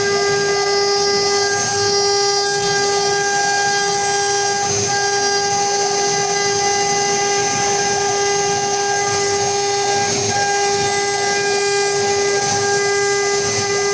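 Spindle motors of a four-spindle CNC router running at speed: a loud, steady, high-pitched whine with overtones over a rushing noise, unchanging in pitch.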